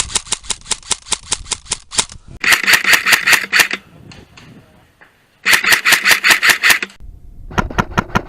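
Airsoft guns firing rapid full-auto bursts of sharp clicks at about ten shots a second. One burst runs through the first two seconds, then come two more bursts with short pauses between them, and another starts near the end.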